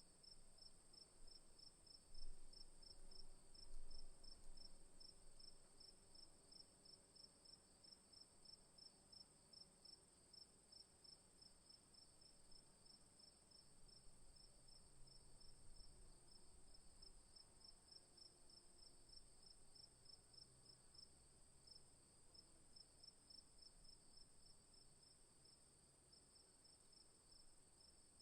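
Crickets chirping in an even, repeating rhythm over a continuous high insect trill, at a faint level. A couple of soft low thumps come about two and four seconds in.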